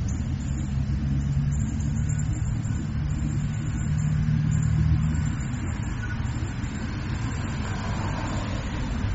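A low, steady rumble with a deep hum riding on it; the hum stops about five seconds in and the rumble carries on.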